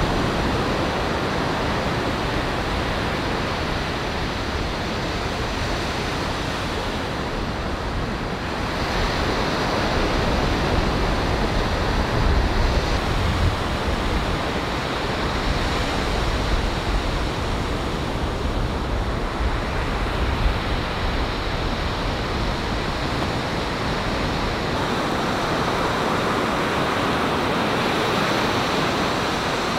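Steady surf of small waves breaking and washing up a sandy beach: a continuous rush that swells a little from about ten seconds in.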